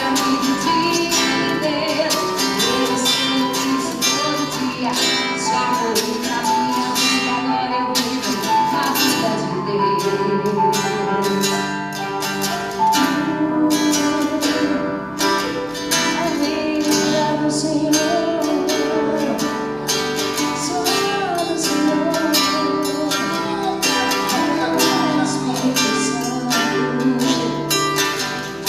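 Live gospel band music: guitar and drums keeping a steady beat, with a voice singing over them.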